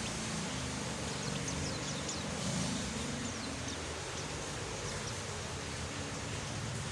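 Steady rain hiss, with a few quick, faint high chirps of a pet white-eye (pleci) bird in the first half.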